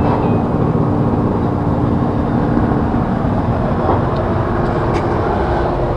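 Steady rumble of street traffic with a vehicle engine running nearby, a low hum under the noise.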